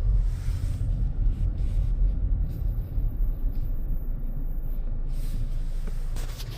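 Car driving on snowy streets, heard from inside the cabin: a steady low rumble of engine and tyres.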